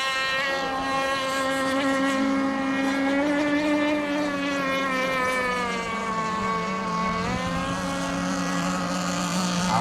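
Radio-controlled racing boats running on the water: a steady, high-pitched engine whine that sags slowly in pitch, then climbs back up about three quarters of the way through.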